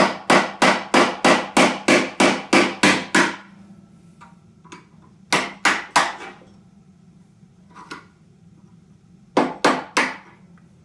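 Hammer striking a heavy flat screwdriver held against the steering-head ring nut of a Vespa PX, knocking the nut anticlockwise to loosen it. A quick run of about a dozen sharp blows, about four a second, then a pause, two more blows, and three more near the end.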